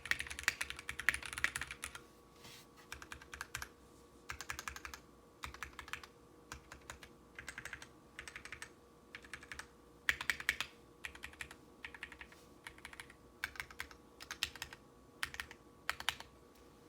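Typing on a mechanical keyboard with lubed Zealios v2 62g tactile switches, GMK keycaps and a brass plate: quick runs of keystrokes in bursts separated by short pauses, the fastest run in the first two seconds, with a faint steady hum underneath.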